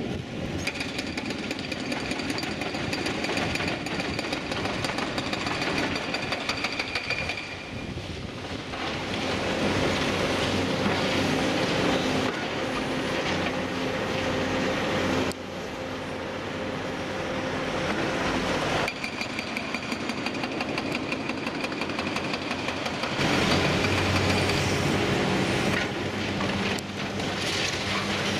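Liebherr 954 demolition excavator working on a concrete building with its long-reach arm. The machine runs steadily under a dense, rapid rattle of impacts and breaking concrete. A high steady whine sounds for the first quarter and comes back near the end.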